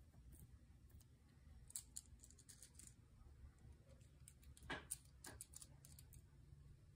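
Near silence with faint scattered clicks and crinkles of hands handling a shrink-wrapped board game box, a few louder ones about five seconds in.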